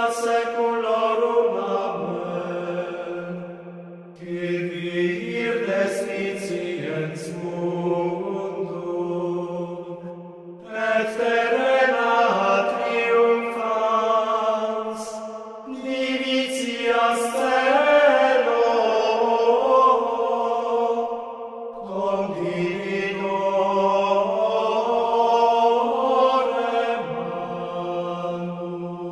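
Low men's voices singing plainchant: long held notes in phrases of several seconds, with short breaks for breath between phrases, fading near the end.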